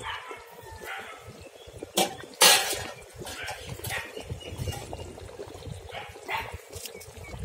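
Murrel fish curry bubbling at a full boil in an aluminium pot, while a dog barks and yips several times, loudest twice at about two seconds in.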